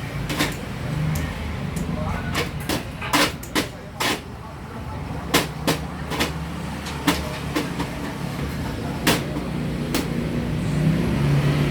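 Sharp, irregular clicks and knocks, a dozen or more, from photocopier parts and tools being handled during a repair, over a steady low hum, with faint voices.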